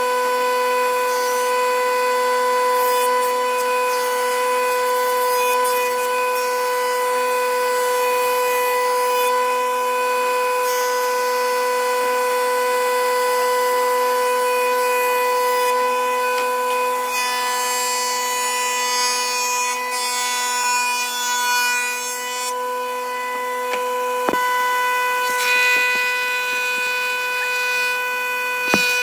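Woodworking power saw running with a steady high whine while cutting wood, with a rasping hiss that grows brighter about two-thirds of the way through. A sharp click comes near the end.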